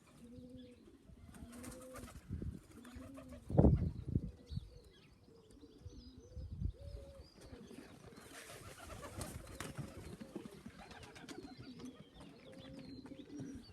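Domestic pigeons cooing repeatedly at the loft, low wavering coos one after another. A single loud thump about three and a half seconds in.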